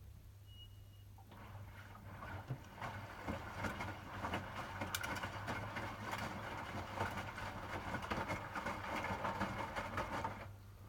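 Hotpoint WMFUG 942 washing machine in its rinse, water sloshing and splashing inside the machine. It starts abruptly about a second in and stops abruptly near the end, over a steady low hum.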